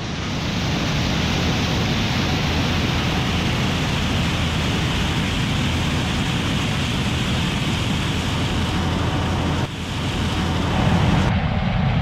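Gleaner S97 combine running steadily while harvesting corn: a constant mechanical rush and rumble. It dips briefly near the end, then comes back with less treble and more low rumble.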